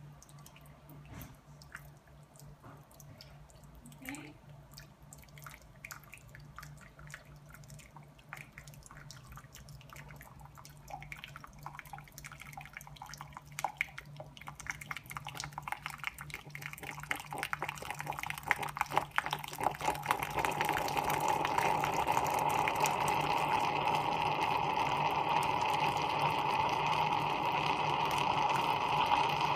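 Coffee flowing from the spout of a vintage Velox electric espresso maker into a glass measuring cup: sparse drips at first, growing denser and louder until, about two-thirds of the way in, they settle into a steady, louder stream.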